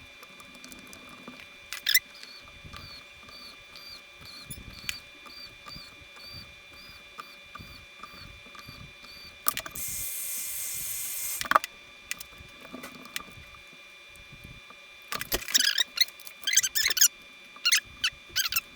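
Small clicks and squeaks of a Samsung Galaxy S10's parts being handled and pressed together as the phone is sealed back up. About ten seconds in, a hiss lasts a second and a half. A faint run of short high chirps and a steady high hum sit underneath.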